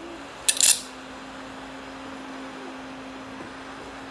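Slime being squeezed in the hands gives one short, crackly pop about half a second in, over a steady low hum.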